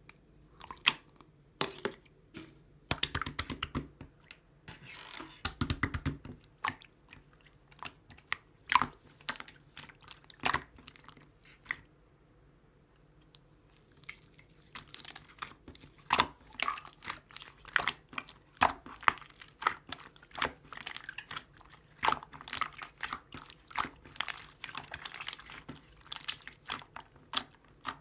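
Clear slime being squished and poked by hand: irregular sticky clicks and pops, with a pause of a couple of seconds near the middle.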